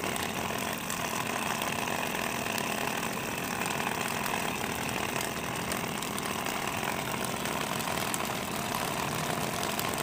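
Steady machine noise of something running, like a motor or small engine, with no music or speech.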